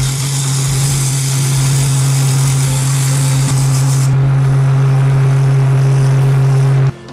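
Small benchtop wood lathe running with a steady motor hum as a wooden handle spins in it, with a hiss from the abrasive held against the turning wood. The hum cuts off suddenly near the end.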